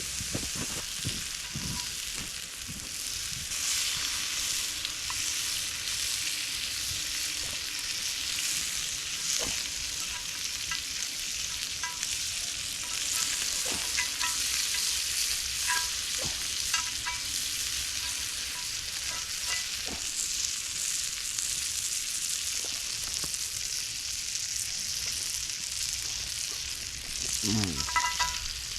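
Food frying in a pan, a steady sizzle with scattered pops and crackles. A brief falling tone sounds near the end.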